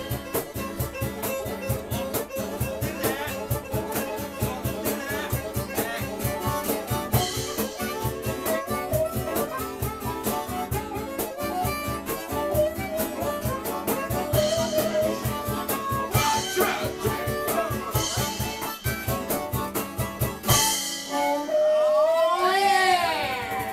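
Live acoustic blues band playing an instrumental passage: a blues harp played in cupped hands over strummed acoustic guitar and a steady beat. A long note bends up and then down near the end.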